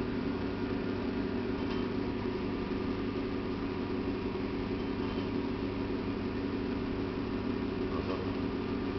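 Pellet stove's fans running with a steady hum.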